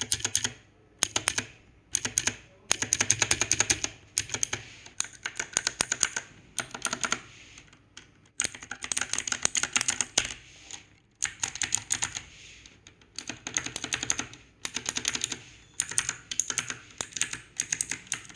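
Cosmic Byte Pandora CB-GK25 mechanical keyboard with Outemu Blue switches being typed on in quick bursts of keystrokes with short pauses between. The switches are really clicky.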